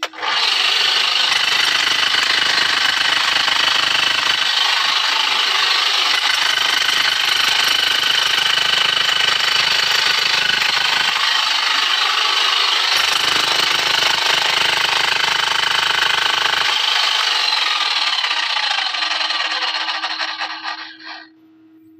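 Handheld power hammer running continuously, its bit hammering into tunnel rock, then slowing and stopping near the end.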